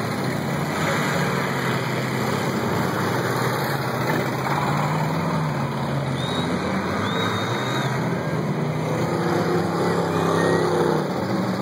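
Several demolition derby cars' engines running and revving together, a continuous mix of engine noise.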